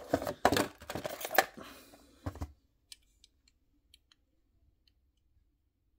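Plastic packaging crinkling and scraping as a tray is slid out of a cardboard diecast-car box, for about two and a half seconds. Then a few faint, light clicks as the small metal model car is handled.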